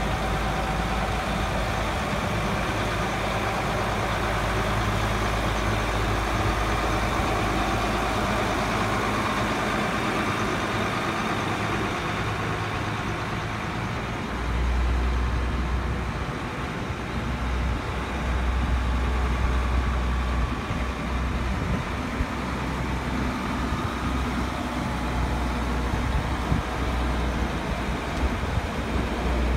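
Truck engine idling steadily. From about halfway through, a deeper low rumble comes and goes over it.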